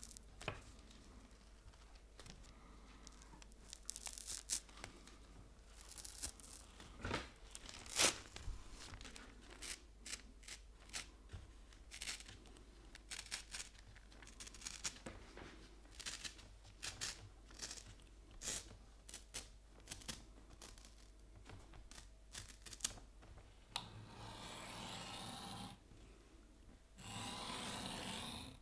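Paper sheets and tissue being handled: faint crinkling and rustling with scattered small clicks, and two longer rustles a couple of seconds each near the end.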